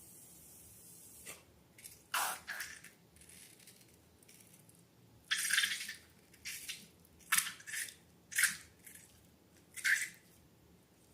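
Slime squelching as it is squeezed and worked: a series of short, wet squelches, the longest about five seconds in, then several quick ones about a second apart.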